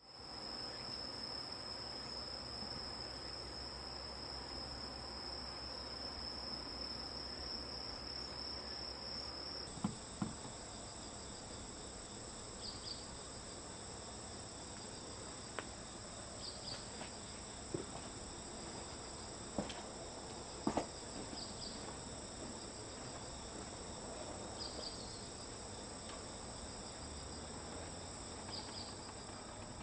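Insects singing in a steady high-pitched chorus. The chorus changes abruptly about ten seconds in; after that, one chirping call repeats about every four seconds over the steady trill, with a few faint clicks.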